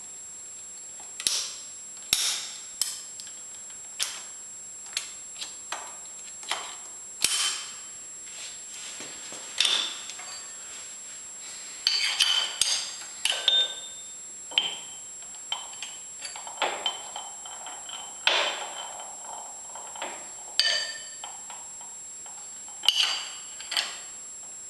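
Steel wrenches clinking against the nuts and change gears of an American Pacemaker lathe as a gear is bolted on and its backlash set: irregular metallic clicks and taps, some ringing briefly, with a few short scrapes.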